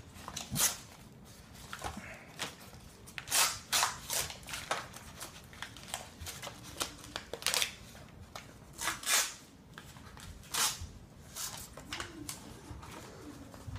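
Brown kraft-paper parcel wrapping crinkling and tearing as it is pulled open by hand, in irregular short crackles and rips, the loudest a few seconds in and again toward the middle.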